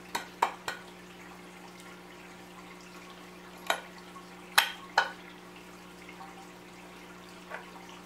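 Metal torque converter parts clinking and knocking as they are handled and fitted together by hand: a few quick light clicks just after the start, then three sharper knocks around the middle and a faint one near the end.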